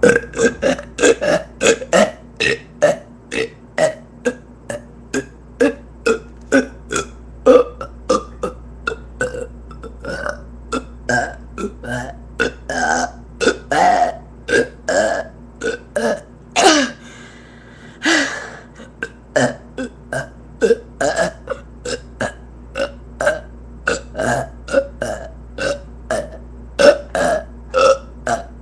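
A person burping over and over in quick succession, about two or three short burps a second. About two-thirds of the way through comes one longer, drawn-out burp, then a short pause before the rapid burps resume.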